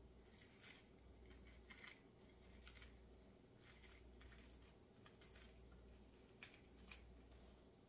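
Kitchen knife working through peppers on a cutting board: faint, irregular cuts and taps over a low steady hum.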